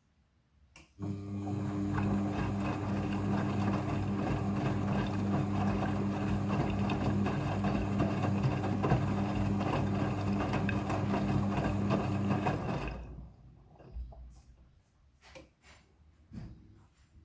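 Front-loading washing machine running during its rinse: a click, then a steady electric hum with water noise for about twelve seconds that cuts off, followed by a few light clicks.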